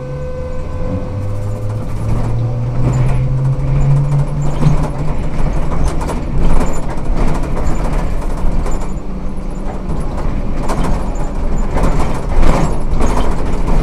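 Ikarus 280T trolleybus with GVM electric equipment pulling away: its traction motor hum rises in pitch over the first five seconds as it gathers speed. After that it is a steady rumble of the moving bus with repeated knocks and rattles.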